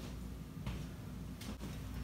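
Quiet workshop room tone: a low steady hum with two faint clicks or knocks, under a second apart.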